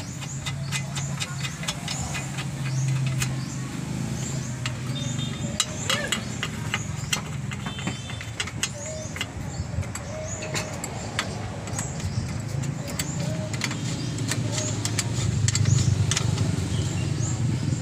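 Many small metallic clicks and taps of a wrench working the mounting bolts of a radiator's electric cooling fan, over a steady low hum.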